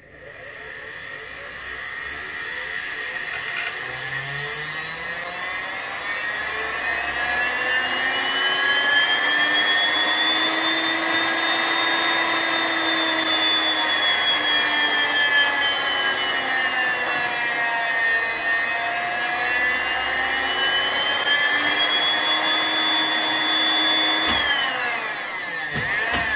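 Sewing machine motor running overvolted on a 440 V three-phase supply: a loud, high whine that slowly rises and falls in pitch, then drops away near the end.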